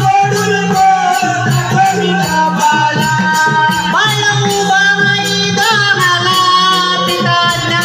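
Konkan Jakhadi (Shakti-Tura) folk music: a held melody line that slides up in pitch about four seconds in, over a steady beat of rattling percussion.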